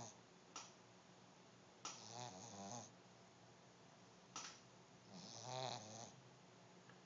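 Pug snoring: two snores about three seconds apart, each lasting about a second, with short clicks between them.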